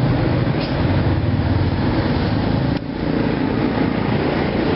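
Street traffic with motorbike engines running, a steady loud drone that dips briefly about three seconds in.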